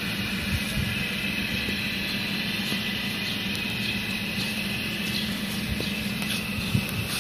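Steady receiver hiss with a low hum underneath from a PRC-77 military radio in its vehicle mount, switched on with no signal coming in.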